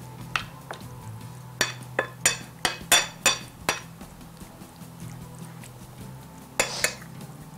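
Metal spoon clinking against a ceramic plate while mixing chicken pieces into a yogurt and masala marinade. A quick run of about eight sharp clinks comes between about one and a half and four seconds in, and two more follow near the end.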